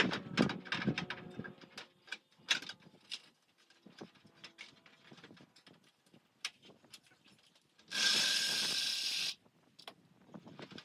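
Clicks and knocks of hand work on door parts, thickest in the first few seconds. About eight seconds in, a loud, steady rushing sound lasts about a second and a half and cuts off.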